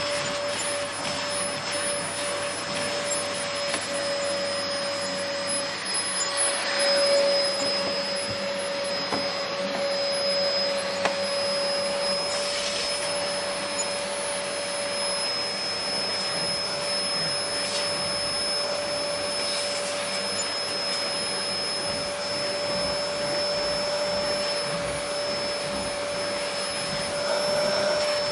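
Vacuum cleaner running steadily while vacuuming stairs: a constant motor whine over a dense rushing hiss, with a few brief swells as the nozzle works the steps.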